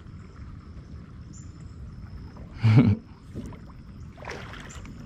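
Water sloshing and splashing against a kayak's hull while a big blue catfish is hauled alongside. There is a short loud burst about three seconds in and a weaker splash about a second later.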